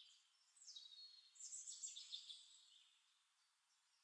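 Near silence, with a few faint, high bird chirps and short falling twitters between about half a second and two and a half seconds in.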